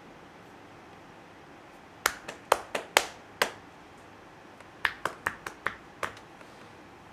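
Hand-percussion massage on the shoulders: two quick runs of sharp pops, about six each, separated by a short pause.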